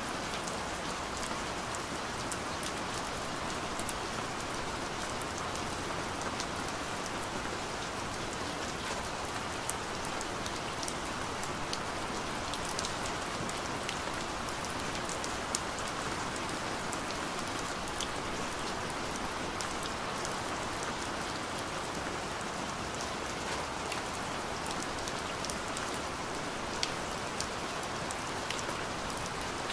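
Steady rain: an even hiss of falling rain with scattered sharp ticks of individual drops hitting close by.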